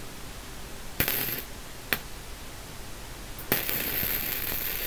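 MIG welder arc crackling as a bead is run on steel: a short burst about a second in, a sharp click near two seconds, then steady crackling from about three and a half seconds on.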